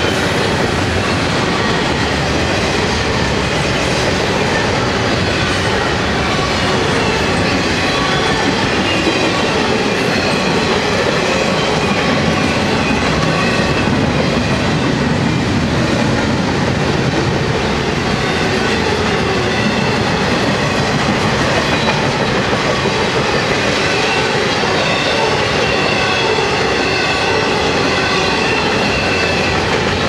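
Double-stack intermodal well cars of a freight train rolling past, a loud steady noise of steel wheels on rail.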